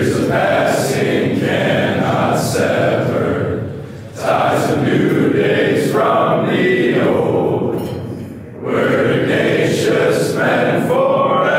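A large group of teenage boys singing together, in long phrases broken by short pauses for breath about every four seconds.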